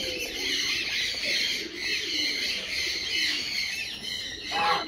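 Busy chirping of many small birds, with soft low calls from domestic geese and one loud goose honk near the end.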